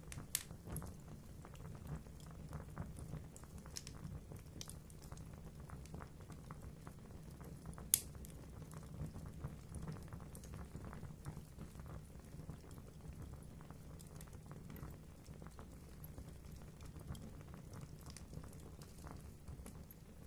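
Fire burning in a fireplace, crackling with scattered small snaps and one sharp pop about eight seconds in, over a low steady rumble.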